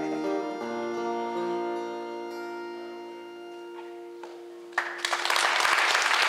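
Acoustic guitars and accordion hold the song's closing chord, which slowly fades out. Almost five seconds in, the audience suddenly breaks into loud applause.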